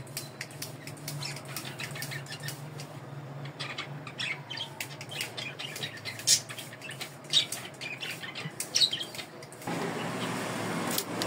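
A hand-held trigger spray bottle misting plant leaves in quick, repeated squirts, each a short hiss, over a low steady hum. About ten seconds in, a steadier rushing noise comes in.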